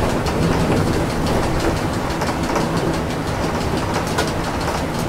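Inside a trolleybus driving in the rain: a steady low rumble and hiss, with many small rattling clicks throughout.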